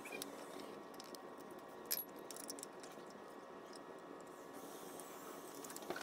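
A few light metallic clicks and clinks of small hardware being handled and fitted at the hub of a drift trike's rear wheel, the sharpest about two seconds in.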